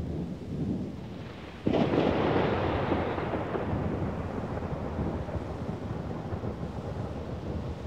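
Thunderstorm: a low rumble of thunder, then, about a second and a half in, a sudden sharp thunderclap that rolls away slowly over the next few seconds.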